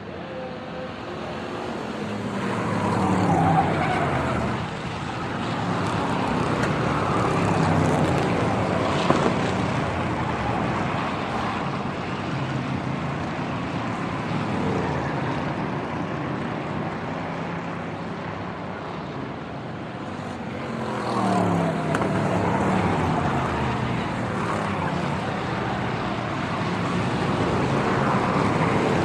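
Racing car engines running at high revs as cars go past, the engine pitch falling with each pass. This happens most clearly a few seconds in and again about two-thirds of the way through, over a continuous din of engines.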